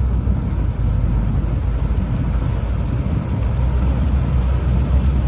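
Car driving on a rain-soaked highway in heavy rain: a steady low rumble of engine and tyres under an even hiss of rain and wet road spray.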